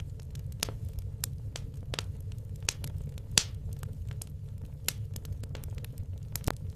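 Wood logs burning in a fireplace, crackling with irregular sharp pops and one louder pop about three and a half seconds in, over a steady low rumble.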